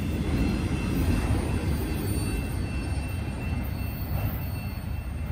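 Freight train rolling past, a steady low rumble of wheels on rail that slowly fades.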